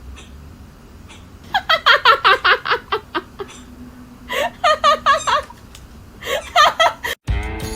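A person laughing in three bouts of quick, high-pitched giggles. The first bout, about a second and a half in, is the longest and loudest.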